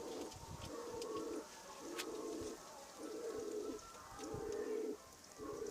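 Domestic pigeon cooing over and over: about five low coos, each under a second long, at an even pace.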